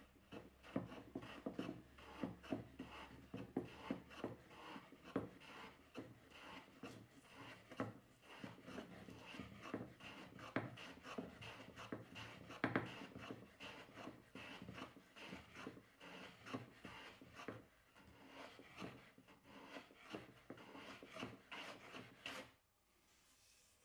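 Irregular rubbing and scraping on wood, a rapid run of short strokes and knocks from hand work on timber, stopping suddenly near the end.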